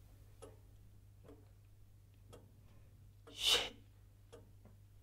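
A clock ticking softly about once a second in a quiet room, with one short, louder breathy huff from a person about three and a half seconds in.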